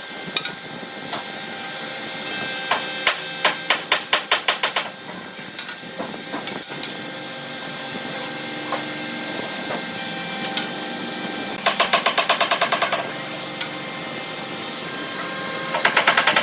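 Woodworking tool noise: a steady background hum broken three times by bursts of rapid, even clicking, about ten clicks a second.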